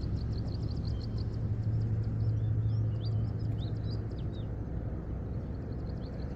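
A steady low drone, like a distant engine, easing off about four seconds in. Over it, birds chirp in quick high repeated notes, with a few more varied chirps near the middle.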